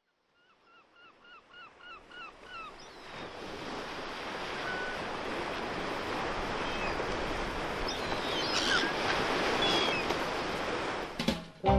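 An ambience of steady rushing, surf-like noise fading up from silence. In the first few seconds a run of about eight short, high, hooked animal calls repeats several times a second, with a few single calls later. Music with a beat begins near the end.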